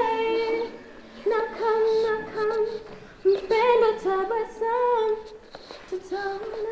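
A female voice humming a slow, wordless, unaccompanied melody in held phrases of one to two seconds, with short pauses between them.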